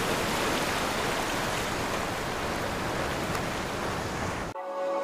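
Ocean surf washing over rocks: a steady rush of water that cuts off suddenly near the end, where soft music begins.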